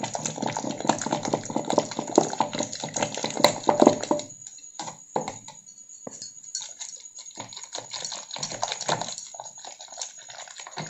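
Wooden hand churner twirled with both hands in a steel bowl of cultured cream: wet churning and splashing with many quick clicks and knocks, busiest for the first four seconds, then sparser. The butter is separating and rising to the top.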